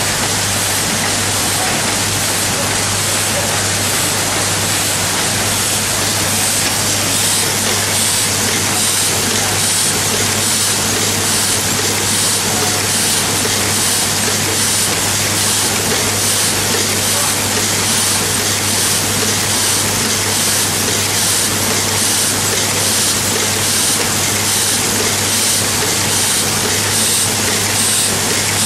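Automatic LED assembly machine running: a steady, dense mechanical rattle and hiss with a low steady hum underneath, and faint light ticks repeating at an even pace, under a second apart.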